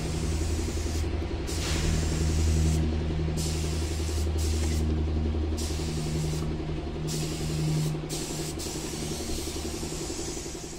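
Air spray gun hissing in repeated bursts of one to two seconds as primer is sprayed onto a steel truck body, over a steady low machine hum.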